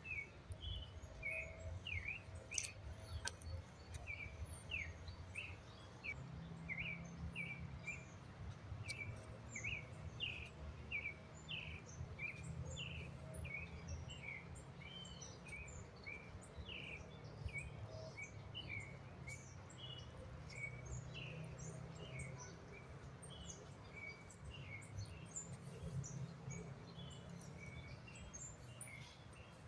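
Birds chirping: a steady run of short, high chirps, several a second, over a low steady rumble.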